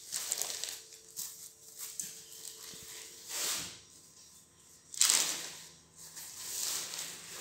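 Silk saree fabric rustling and swishing as it is unfolded and lifted by hand, with a sharper, louder swish about five seconds in.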